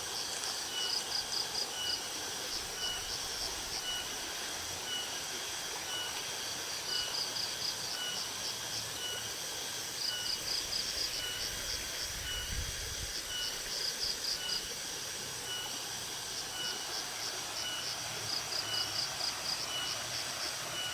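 Insects chirping in trains of rapid high pulses, with a short high note repeating at an even pace, over a steady even rush of flowing river water.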